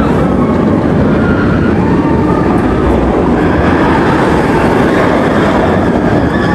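Amusement-park passenger train running, a loud steady rumble.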